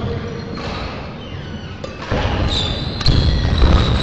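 Badminton rally: the shuttlecock is struck with sharp racket cracks, about twice, while the players' quick footwork thuds on the court floor. Quieter at first, busier from about halfway.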